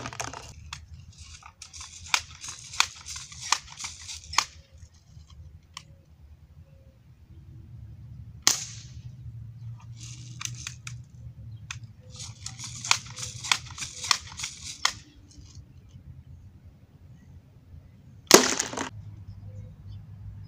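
Two shots from a Crosman M4177 multi-pump .177 air rifle, each a sharp crack, about 8.5 s and 18.5 s in. Before each shot come a few seconds of quick clacking and hissing as the rifle is worked between shots.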